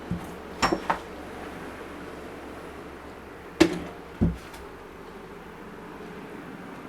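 Steady hum of an air conditioner running, with a few sharp clicks and knocks in the first second, then a louder click and a low thump a little past halfway.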